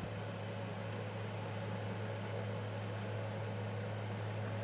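Fridgemaster FM168 mini tower fan running steadily on its highest speed setting: a constant rush of moving air over a steady low motor hum.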